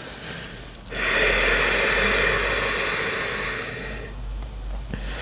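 A woman's long, audible breath, starting about a second in and fading away over about three seconds, with a fainter breath just before it.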